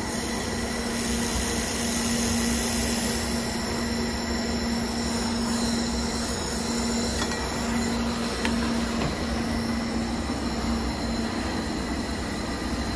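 IPG LightWELD handheld laser welder running a continuous-wave weld with wire feed on a stainless steel tube: a steady mechanical hum and hiss, with a low hum that falters and stops near the end.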